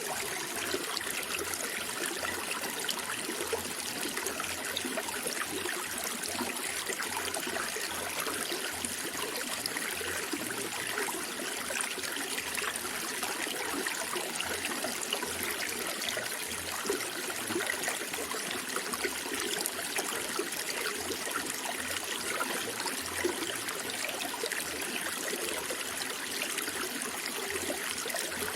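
Running water flowing and trickling steadily, with no breaks.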